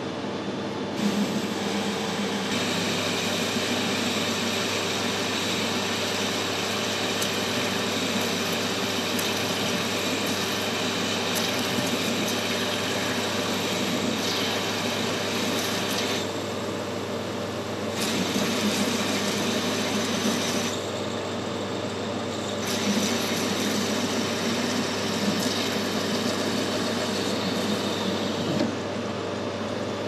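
Metal lathe running with a narrow insert tool cutting a groove into the turning workpiece. The high cutting hiss comes in stretches, dropping away twice for a couple of seconds about halfway through, over the steady hum of the lathe's motor and gearing.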